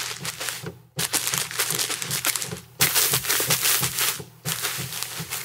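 Foley footstep samples on carpet, played from a keyboard sample library. Layer A's carpet banks (barefoot, boots with heels and tennis shoes) give a quick run of soft footfalls and scuffs. The sound changes at short breaks about a second in, near the middle and near the end, as the banks are switched.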